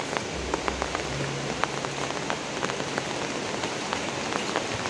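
Steady rain falling, with many separate drops ticking sharply and unevenly through the hiss.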